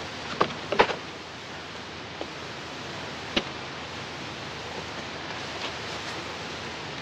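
Short wooden knocks and clicks of a painter's box and frame being handled: a cluster in the first second and one more a little past three seconds, over a steady soundtrack hiss.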